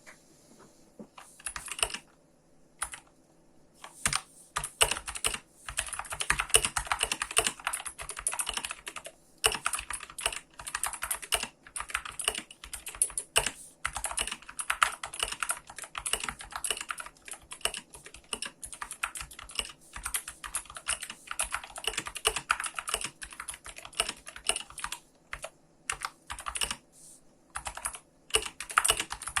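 GK61 60% mechanical keyboard with lubed Gateron Blue clicky switches being typed on: dense runs of sharp key clicks, broken by a few short pauses.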